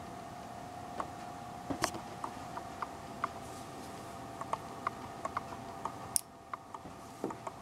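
An Atwater Kent 10B breadboard radio's horn speaker gives a steady high whistle with scattered crackles and pops of static, the sound of the set on but not yet tuned to a station. The whistle cuts out for about a second a little after six seconds in, then comes back.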